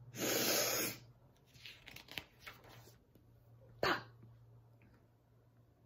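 A person's loud sniff through the nose, lasting under a second, acted out for the 'SNIFF!' in the book, followed by soft rustles of book pages being turned and a short sharp pop nearly four seconds in.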